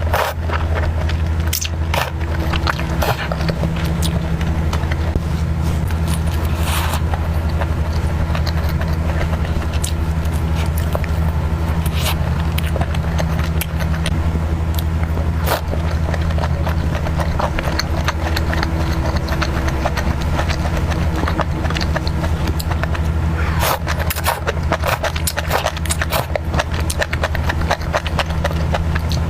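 Close-up eating sounds: chewing and crunching with clicks and scrapes, over a steady low hum. The clicks come thickest near the start and again near the end.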